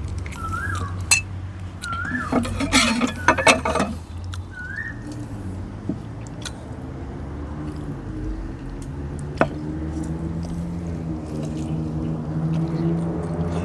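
Metal spoon clinking and scraping against ceramic dishes for a couple of seconds, with a single sharp click later. Short chirps sound a few times early on, and a low steady hum grows louder toward the end.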